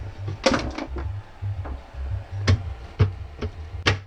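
Cabin cupboard doors being handled: several sharp knocks and clicks, about six in four seconds, over a low rumble.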